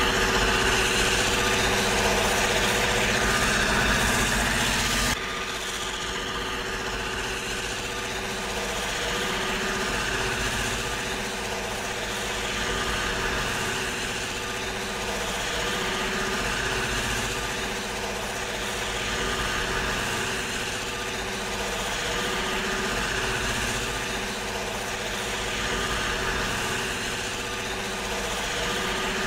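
Steady running of heavy diesel engines from the locomotives pushing a rotary snowplow, a constant hum with a low rumble. About five seconds in the sound drops suddenly to a lower level, then carries on steadily with slow swells.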